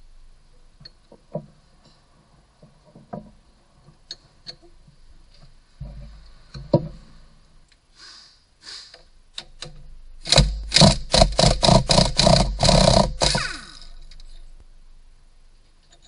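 Hand and tool work on an engine's front end: scattered light clicks and knocks, then a loud burst of rapid rattling knocks, about five a second for some three seconds, ending in a brief falling whine.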